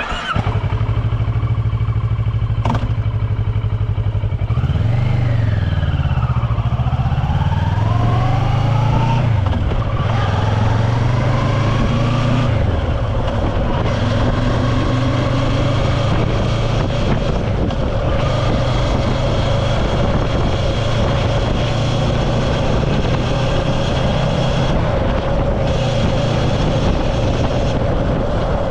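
A motor running steadily, its pitch rising and falling a few times in the first ten seconds, then holding even.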